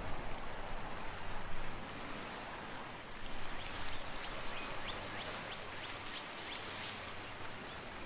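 Steady outdoor hiss of field ambience in bare trees. From about three and a half seconds in there is a run of faint, short, high chirps, like birds calling.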